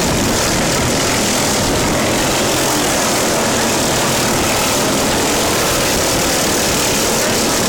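Lawn mower engine running steadily and loudly, with no change in pitch.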